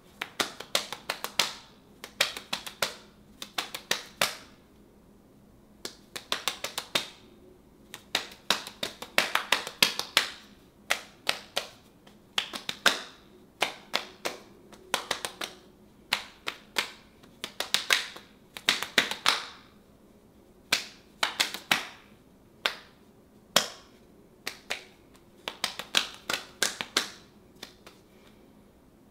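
Hands tapping and slapping against bare forearms as the arms are crossed and shifted, in quick clusters of sharp taps with short pauses between them.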